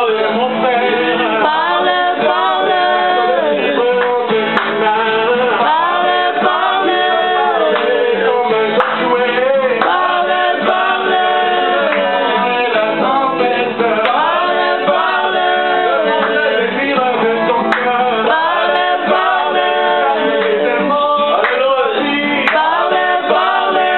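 Several voices singing a religious song together, a man's voice most prominent, with no clear instrument.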